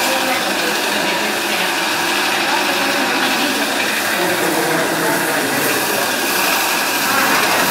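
Large rotating stone grinding wheel running steadily as a cloisonné vase is pressed against it, grinding the fired enamel surface smooth; a continuous, even machine noise.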